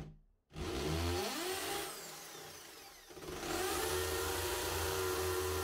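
Bosch corded hammer drill boring into a masonry wall. There is a short burst at the start, then the motor speeds up, slows again, and about three seconds in picks back up to run steadily.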